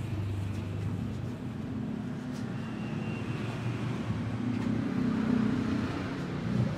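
A car engine running steadily with a low hum.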